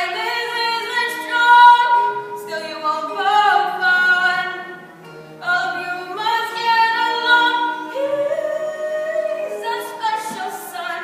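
Middle school performers singing a number from a stage musical, with light instrumental accompaniment. The notes are held in phrases of two to three seconds, with short breaks between them.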